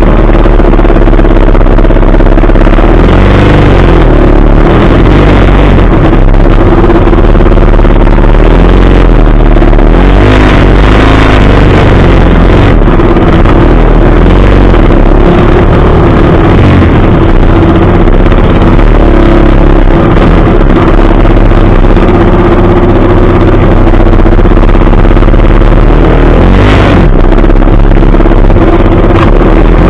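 Several trail motorcycle engines running and revving at close range, very loud and unbroken, the revs rising and falling now and then.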